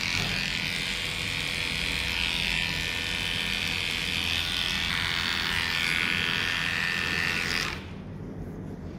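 Heiniger electric animal clipper running steadily with a high motor whine as it shaves a dog's matted coat, then switched off abruptly near the end.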